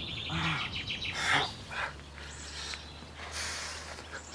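Birds chirping outdoors, with a brief low grunt near the start and two short harsh bursts a little over a second in, over a steady low hum.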